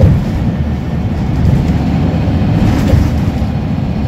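Scania L94UB Wright Solar single-decker bus heard from inside the passenger saloon while under way: a steady low diesel engine drone mixed with road rumble.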